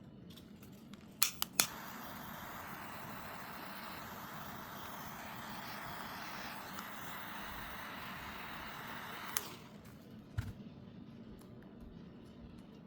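A few sharp clicks, then a steady hiss for about eight seconds that cuts off suddenly with a click, followed by a single low thump.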